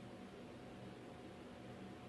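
Faint steady room tone: a soft hiss with a low hum underneath.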